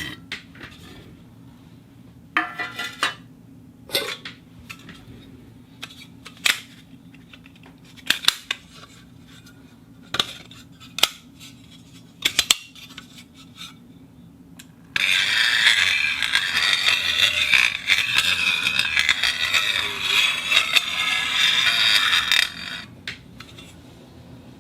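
Steel-on-steel sounds from a camera follow focus's steel case. First comes a scattering of short metal clicks and scrapes, then steel sliding against steel in a continuous friction scrape that starts suddenly about fifteen seconds in and stops about two seconds before the end.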